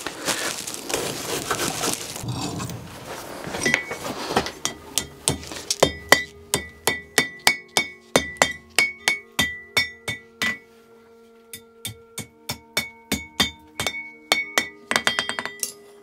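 Hand hammer striking a red-hot iron staple blank on the anvil horn, bending it into a square-cornered U: sharp ringing blows about three a second, with the anvil ringing after each and a short pause past the middle. A rushing noise comes first, for about four seconds.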